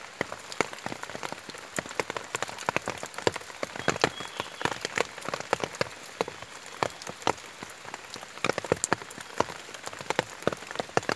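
Rain falling on broad leaves and wet ground close by: a dense, uneven run of sharp drop taps over a steady hiss.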